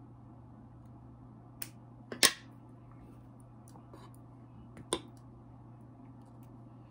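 Steel surgical instruments (suture scissors, forceps, needle driver) clicking as they are handled and set down on a wooden table: three short sharp clacks, the loudest a little over two seconds in, over a low steady hum.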